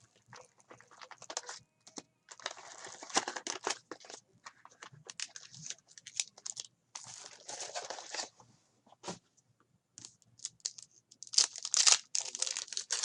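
Plastic wrapping of a trading-card box or pack crinkling and tearing as it is opened, in irregular bursts with short pauses; louder near the end.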